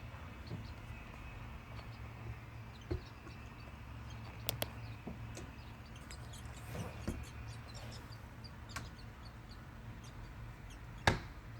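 Faint, scattered short chirps of birds at a nest over a low steady hum, broken by a few sharp knocks, the loudest near the end.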